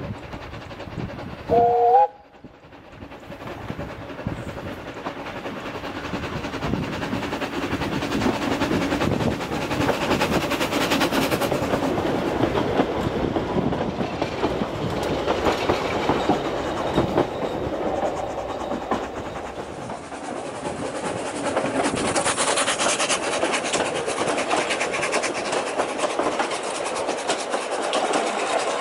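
Narrow-gauge steam locomotive sounds a short two-note whistle, then comes closer and passes with its exhaust working and its coaches clattering over the rail joints. The train rattle keeps going steadily to the end.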